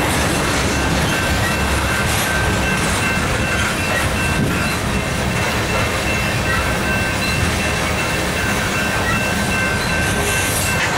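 Covered hopper cars of a freight train rolling steadily past, steel wheels rumbling on the rails, with a faint steady high-pitched ring from the wheels.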